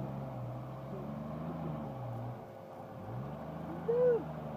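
Off-road 4x4 engine revving up and easing off as the vehicle works along the trail, dropping back briefly about halfway and then pulling again. A short arched call cuts in once near the end.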